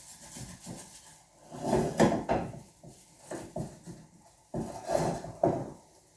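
Kitchen utensils knocking and scraping against cookware: a run of irregular clatters in two bunches, the loudest about two seconds in.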